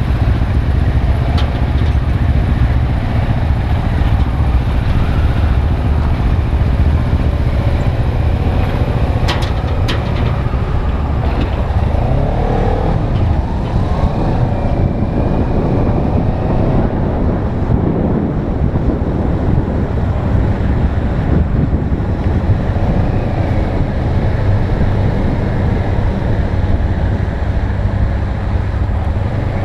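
Motorcycle engine running at low speed, heard from a camera mounted on the bike, with wind noise on the microphone growing rougher after about twelve seconds as the bike picks up speed. A single sharp click about nine and a half seconds in.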